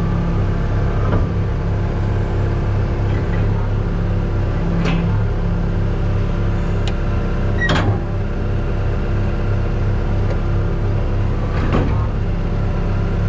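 Diesel truck engine running steadily with a low, even pulse, with a few light clicks over it.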